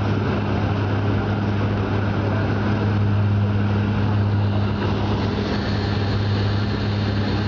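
Airliner cabin noise in flight on the approach: a steady engine drone with a constant low hum and the even rush of air past the fuselage.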